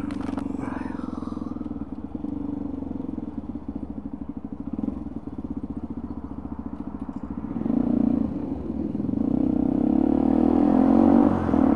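Motorcycle engine running at low revs while the bike rolls slowly in traffic, then opening up about eight seconds in and getting louder as the bike pulls away.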